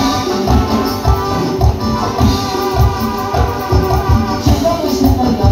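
Live band music played loud through a PA system, with keyboards over a steady bass beat.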